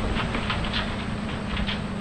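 Farm harvest machinery running: a steady engine drone with a constant, irregular rattle and clatter over it.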